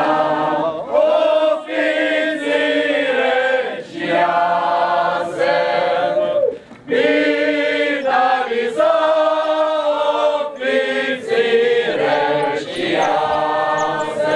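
A group of voices singing a folk song unaccompanied, in harmony, in phrases of long held notes with a short break about two-thirds of the way through.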